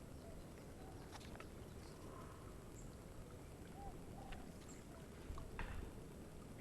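Quiet outdoor ambience: a steady low rumble with faint short chirps repeating now and then, and a few soft clicks, the loudest near the end.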